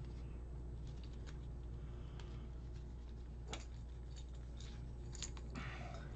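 Faint handling noise as hands pull a needle and thread through a paper sample: scattered small clicks and ticks, with a short rustle of paper near the end, over a steady low hum.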